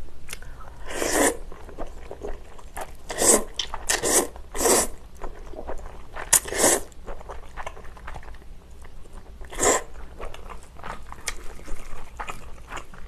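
Chewy jjolmyeon noodles slurped into the mouth in a series of short, loud slurps, with quieter chewing and small mouth clicks between them.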